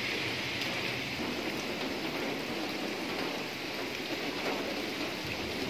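Steady rain falling on trees and a wet road: an even hiss that holds level throughout.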